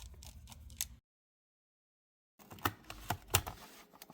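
Light clicks and taps of small tools and parts being handled while refitting a laptop's hinge brackets. About a second in the sound drops to dead silence for over a second, then several sharper clicks follow.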